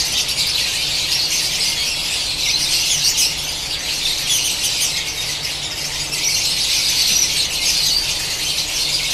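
Many lovebirds in a breeding aviary calling at once: a dense, continuous high-pitched chatter of overlapping short shrill calls.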